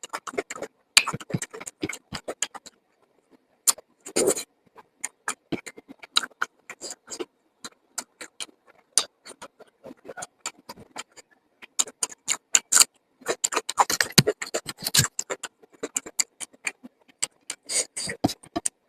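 Close-miked chewing and mouth sounds of a person eating: an irregular string of short clicks and smacks, pausing briefly about three seconds in.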